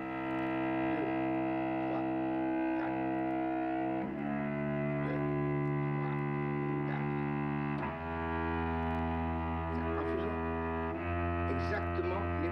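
Cello bowing a slow C major scale, four beats held on each note: long sustained notes of about four seconds each, moving to a new note three times.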